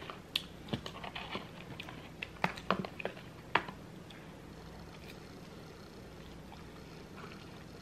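Metal fork digging and scraping in a styrofoam takeout container of loaded fries: a run of sharp clicks and scrapes over the first three and a half seconds, then only faint room noise.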